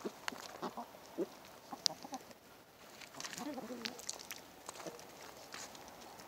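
Chickens clucking now and then as they feed, a few short calls with scattered sharp clicks and taps in between.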